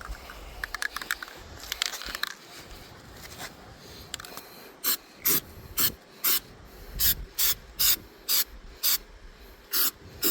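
Rusty metal refrigerator drain pan being sanded by hand: scattered scraping at first, then from about five seconds in a steady run of short back-and-forth rasping strokes, about two a second.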